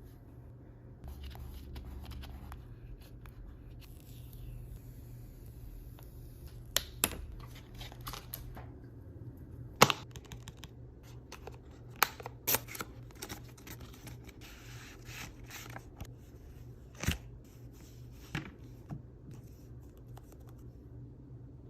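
Packaging being opened and handled: soft tearing and rustling of paper or plastic, with a scattering of sharp clicks and taps, the loudest about ten seconds in.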